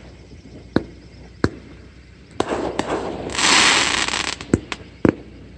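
Fireworks going off: a string of sharp bangs at uneven intervals, with a loud hiss lasting about a second around the middle.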